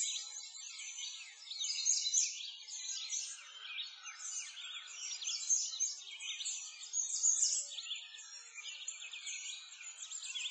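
A chorus of many songbirds chirping and singing at once, with quick high chirps overlapping without pause.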